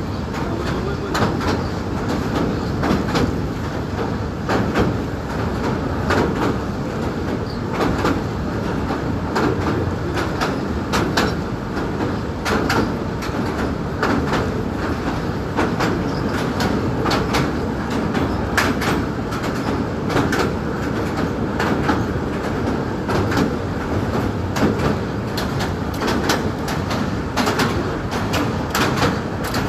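Train running on rails: a steady rumble with frequent, irregular sharp clacks and rattles throughout.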